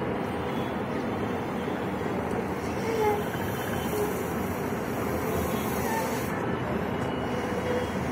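Steady rushing background noise while a latex balloon is blown up by mouth, with a few faint short squeaks.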